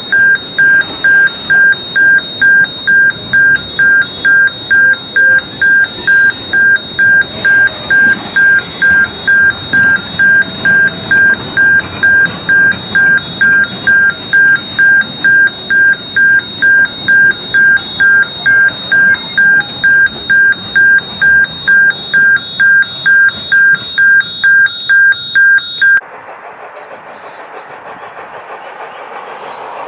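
Railway level-crossing warning alarm beeping loudly about twice a second, two steady pitches sounding together. It cuts off abruptly near the end, leaving a quieter steady background noise.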